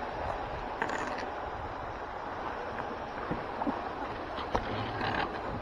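Water splashing and running off a rusty iron gate as it is hauled up out of the canal on a magnet rope, with a few light knocks.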